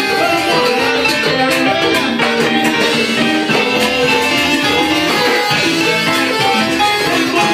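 Cuban salsa music played by a band, with guitar prominent over a steady percussion beat.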